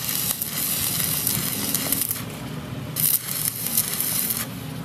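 Stick (arc) welding on a truck's rear axle: the electrode arc crackles and sizzles for about two seconds, breaks off briefly, then strikes again for about another second and a half.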